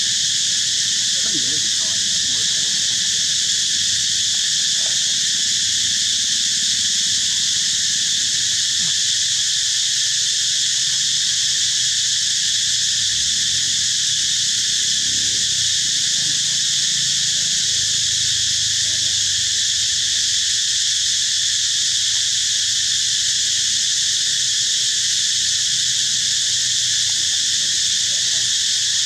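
Insect chorus in forest: a steady, unbroken high-pitched drone.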